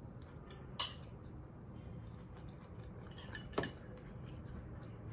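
Metal fork clinking against ceramic dishes: two sharp clinks, one about a second in and another about three and a half seconds in, each with a few softer taps just before it.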